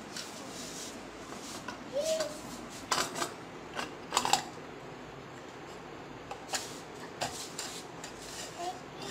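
Metal clinks and knocks of scooter drum-brake parts being handled and fitted into the rear wheel's brake drum: scattered sharp clicks, the loudest about three and four seconds in.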